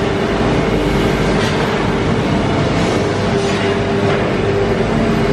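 Mannesmann chain drawing bench for bars running: the heavy drawing chain travels along the bench over its track, with a steady machine hum underneath.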